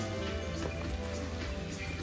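Background music with held notes, over the faint hiss of chicken frying in masala paste in a pan.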